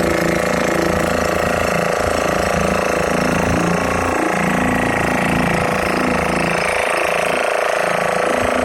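An engine running steadily with an even, unbroken drone.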